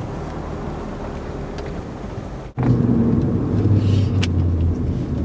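Car engine and road noise heard inside the cabin: a steady low rumble that cuts off sharply about two and a half seconds in and comes back louder, as the car is driven.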